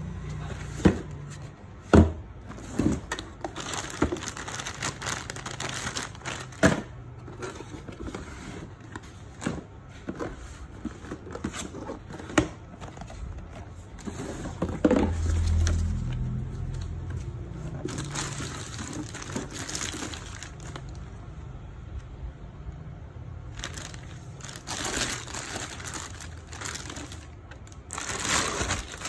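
Cardboard packaging handled and opened by hand: scattered knocks, taps and scrapes of card, with a dull thud about halfway. Later come longer stretches of rustling and crinkling as the clear plastic bag around the RC truck is handled.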